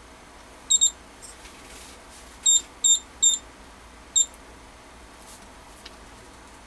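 A JEC instrument's built-in electronic beeper giving short, high, loud beeps: a quick double beep about a second in, then three beeps between about two and a half and three and a half seconds, and one more a little after four seconds. They come as the unit powers up and shows a backup-battery-low warning that asks for a key press.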